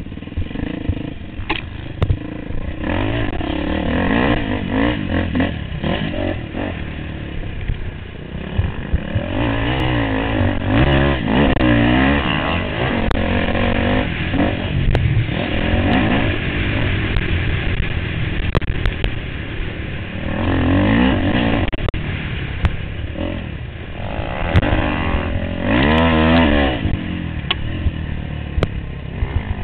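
Yamaha YZ426F single-cylinder four-stroke dirt bike engine being ridden hard, the revs climbing and dropping again and again through the throttle and gear changes. Sharp knocks and rattles from the bike over bumps.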